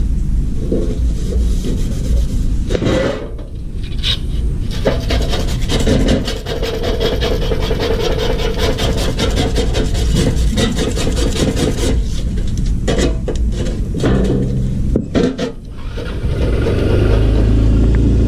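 Fast, rough rasping, like scraping or filing a hard surface, with many strokes a second over a steady low rumble. It is strongest through the middle and breaks off briefly a few times.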